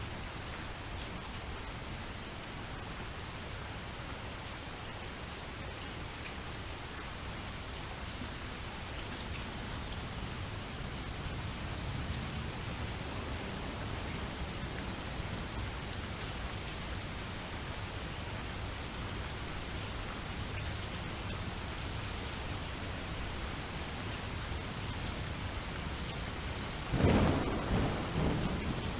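Steady rainfall, with a clap of thunder rumbling for about two seconds near the end.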